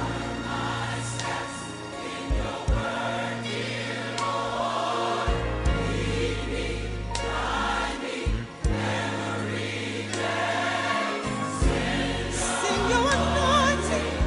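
Gospel choir singing over a steady bass accompaniment.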